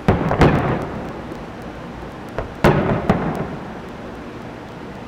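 Aerial firework shells bursting: two booms just after the start, then a small pop and two more booms around the middle, each trailing off into a rolling echo.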